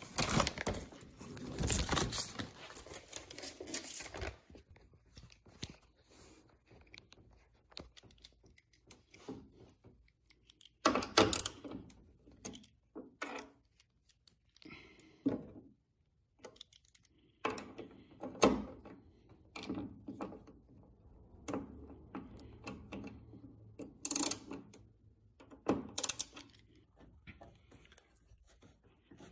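Paper rustling for the first four seconds or so, then scattered clicks, clinks and knocks of metal parts being handled while a tailgate assist shock is fitted to its mounting stud.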